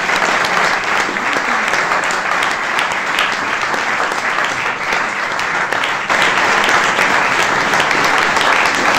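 A large audience applauding steadily, many hands clapping at once, a little louder from about six seconds in.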